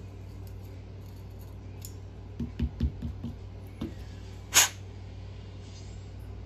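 Small parts and hand tools being handled on a workbench during a nitro engine teardown: a few soft knocks and clicks, then one short sharp noise about four and a half seconds in, the loudest of them, over a steady low hum.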